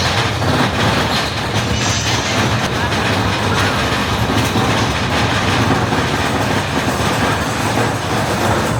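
Mine-train roller coaster cars running along the track: a steady loud rumble with continuous rattling and clatter of the wheels.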